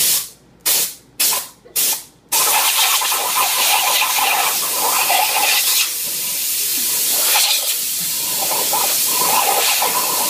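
Compressed air from an air compressor hissing out in four short blasts, then blowing continuously with a wavering hiss.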